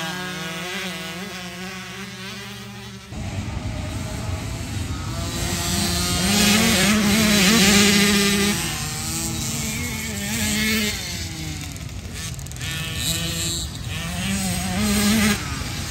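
Small two-stroke engines of KTM 50 SX youth dirt bikes revving up and down as they race past. About three seconds in, a steady rushing noise joins the engines.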